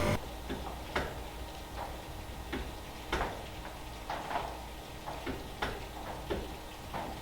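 A series of light, irregular clicks and taps, about two a second, typical of hand work fitting parts on a truck's front end.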